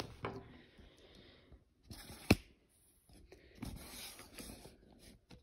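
Faint rustling and scraping of hands handling a fuzzy yarn cake and crochet hook on a wooden tabletop, with one sharp click about two seconds in.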